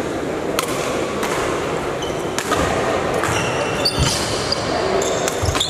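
Badminton rally: rackets striking the shuttlecock about five times at uneven intervals, each a sharp crack, over a steady hall din.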